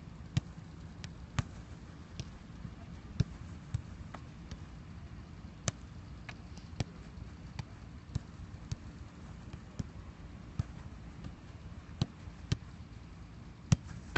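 Footballs being kicked in quick passes: a string of sharp thuds at irregular intervals, about one or two a second, the loudest near the end.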